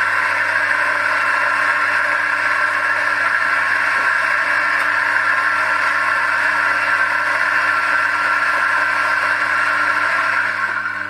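Mazzer Super Jolly coffee grinder's motor running steadily while grinding espresso beans, winding down near the end.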